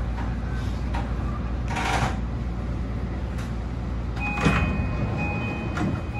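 Inside a JR Kyushu BEC819 DENCHA battery-electric train: a steady low rumble with a noisy rush about two seconds in and a few sharp knocks later. From about four seconds in, a thin high steady tone with a fainter lower one sounds in stretches.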